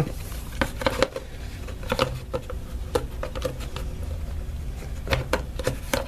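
Light clicks and taps of a Mac Mini's round black plastic bottom cover being handled and set back onto the aluminium case, a dozen or so scattered knocks over a faint steady low hum.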